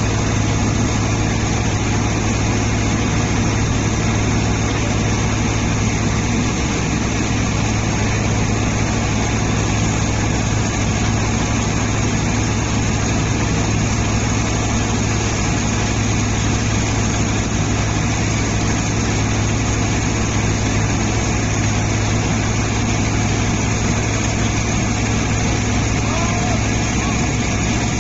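Screw pile driver's engine running steadily, a constant low drone with no change in speed.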